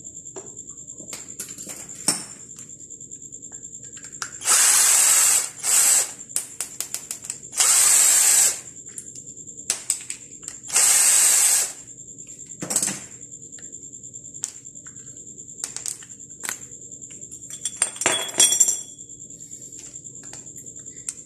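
Cordless drill-driver with a long screwdriver bit running in four short bursts, unscrewing screws from a water-purifier pump head. Between the bursts come light clicks and a brief clatter of small parts being handled.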